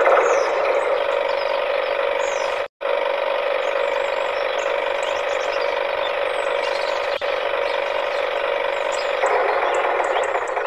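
Small DC motor and its plastic gear train in a homemade toy tractor, whirring steadily as the tractor drives along, with a short break about three seconds in.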